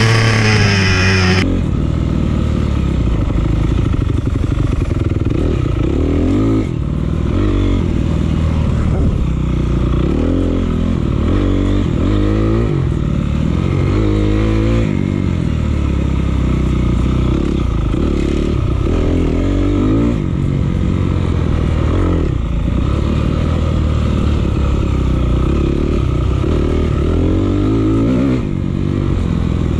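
Dirt bike engine heard close up from the bike itself, revving up and down again and again as the rider rolls on and off the throttle along a trail.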